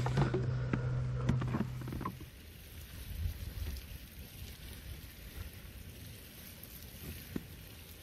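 Clicks and knocks of gear being handled on a fishing kayak over a low steady hum. These stop about two seconds in, leaving faint steady wind and water noise.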